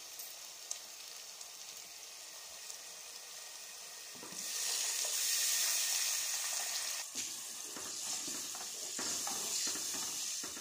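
Tomato masala sizzling gently in a hot pan. About four seconds in, water goes into the masala and it sizzles much louder, with a spoon stirring it through.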